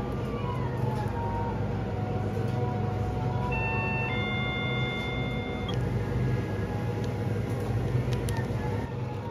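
Self-serve convenience-store coffee machine brewing a large iced coffee with a steady low hum. Over it are a few electronic tones that slide down early on and are held at several pitches around the middle.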